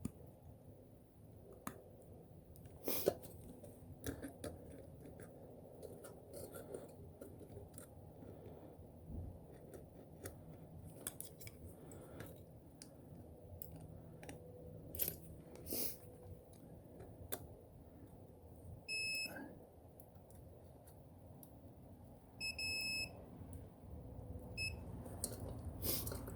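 Small clicks and taps of fuses and hand tools being handled, then a multimeter's continuity tester beeping three times in the last third (two longer beeps and one short one), the tone that signals an unbroken circuit across the fuse-holder contacts.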